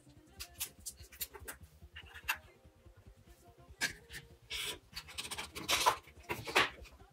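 Hard plastic parts of a power-tool battery pack being handled and fitted together: a series of short scrapes, rubs and clicks, the loudest cluster about four to six seconds in as the top housing is pushed down into the case.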